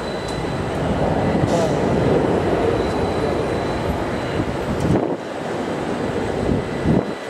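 Steady low rumble of aircraft on the airport apron, with a faint, thin high-pitched whine running through it.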